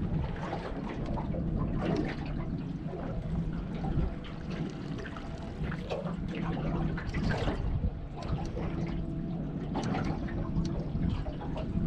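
Water sloshing and lapping against a boat's hull in irregular splashes, over a steady low hum.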